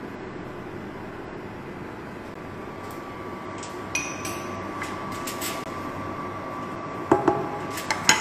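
Clinks and knocks of a pot and kitchen utensils over a steady rushing kitchen background, with a few light clicks about four seconds in and sharper knocks near the end. A faint steady whine comes in partway through.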